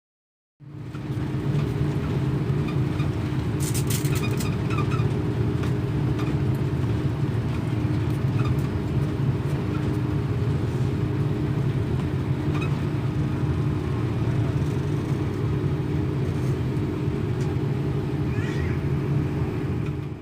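Steady low rumble of an Airbus A330neo airliner's engines and airflow, as heard on board, with a constant hum under it. A few faint clicks come about four seconds in.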